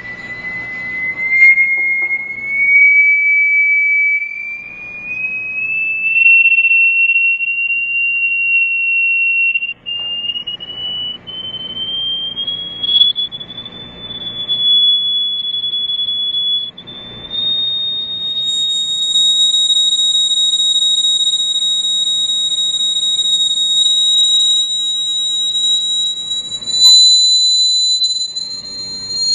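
A pure, high tone from a frequency generator driving a Chladni plate, gliding slowly upward in pitch in steps, with an overtone joining in the second half. Beneath it, patches of rattling hiss come and go as the plate vibrates.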